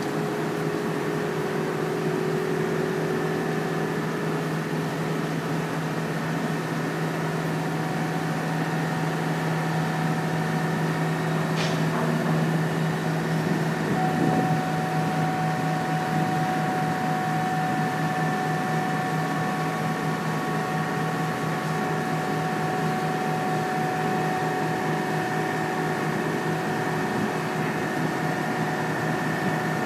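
Steady hum of heavy dockside machinery, made of several constant tones over a noisy drone; a higher tone joins about halfway through.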